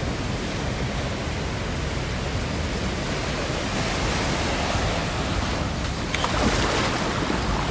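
Steady rush of small waves breaking and washing in the shallows, with wind, getting a little brighter about six seconds in.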